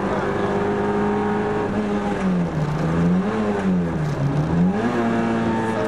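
Rally car engine heard from inside the cabin, running hard at steady revs, then twice dropping in pitch and climbing back up, about two and four seconds in, as the driver lifts off and accelerates again.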